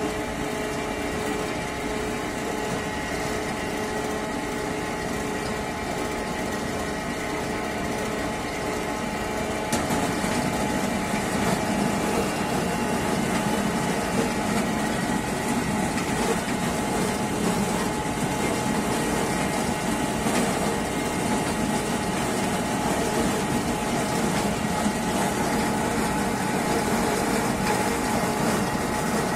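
Mobile apple press running steadily, its mill grinding apples into pulp; the machine noise gets louder and fuller about ten seconds in.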